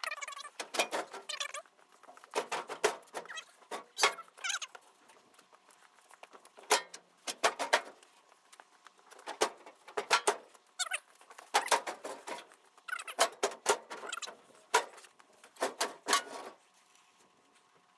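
Metal parts of a truck's front end scraping and clattering in repeated short bursts, with quieter gaps between them.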